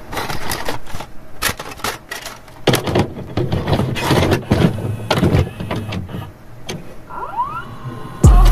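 VHS-style glitch intro sound effects: a dense run of clicks, crackles and mechanical whirring, with a few rising squeals about seven seconds in. Just before the end a loud, steady low hum cuts in suddenly.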